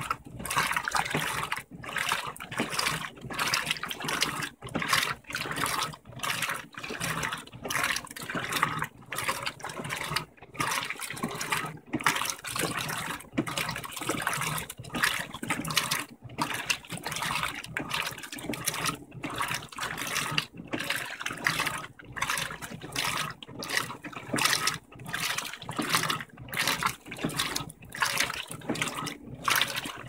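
Electrolux LTM15 15 kg top-load washing machine agitating a double blanket at medium water level: water sloshing and splashing in quick, regular surges as the agitator swings back and forth.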